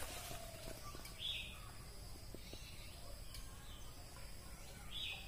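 Faint outdoor ambience with two brief high chirps, one about a second in and one near the end, and a few light ticks.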